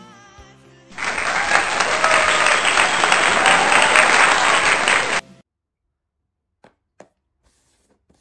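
Crowd applause with cheering, dropped in over the end of background music: it starts abruptly about a second in, runs loud for about four seconds and cuts off sharply. A few faint clicks follow.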